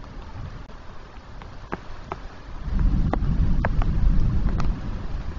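Thunder rumbling low during a rainstorm, swelling about halfway through and staying loud, with scattered sharp taps of raindrops.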